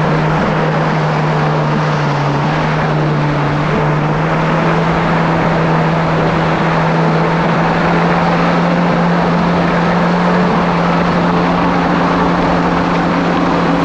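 Kawasaki SX-R 1500 stand-up jet ski's four-stroke four-cylinder engine running at a steady speed, its pitch shifting only slightly, over a loud steady rushing noise.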